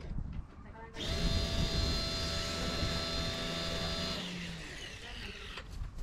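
Makita battery-powered line trimmer (whipper snipper) running with a steady electric-motor whine. It dips briefly near the start, fades about four and a half seconds in, and picks up again near the end.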